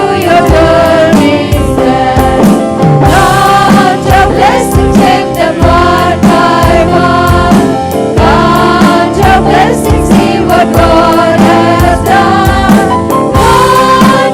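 A choir singing a gospel hymn to a band with a steady drum beat.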